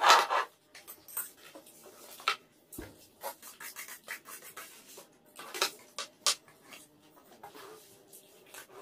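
Spoons and forks scraping and clinking against plates during a meal, in scattered short clicks and scrapes, a few of them sharper.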